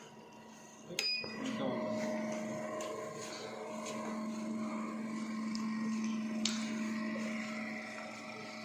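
Ventilator air compressor running with a steady hum, joined about a second in by a sharp click and a brief high beep as the ICU ventilator is switched on, after which the hum grows stronger. A single click follows later.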